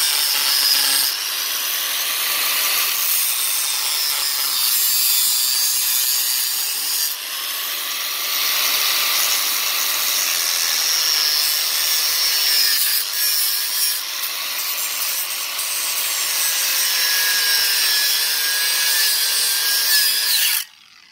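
Angle grinder with a cut-off disc cutting through the steel tailpipe of a Yamaha Byson motorcycle muffler: a loud, steady grinding whine that stops abruptly near the end.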